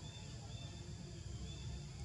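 Outdoor ambience: a steady low rumble with a few short, faint high chirps, about three within two seconds.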